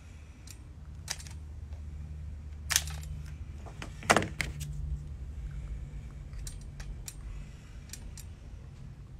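Scattered sharp clicks and knocks of hand work with tools and plastic trim pieces, the loudest about four seconds in, over a steady low hum.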